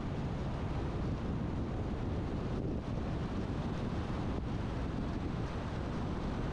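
Steady low rumble of a car driving: tyre and road noise mixed with wind rushing over the microphone.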